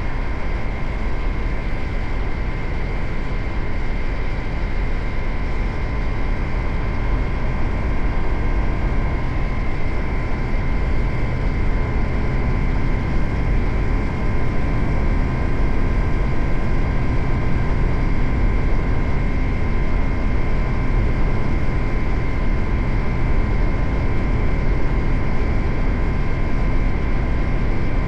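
Suzuki GSX-8R's parallel-twin engine running steadily while the motorcycle is ridden, with road and rushing-air noise. It gets a little louder about eight seconds in, then holds steady.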